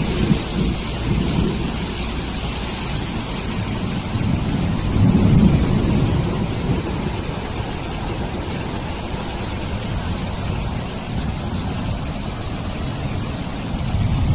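Heavy rain pouring down in a steady hiss, with deep rumbling that swells about five seconds in and again near the end.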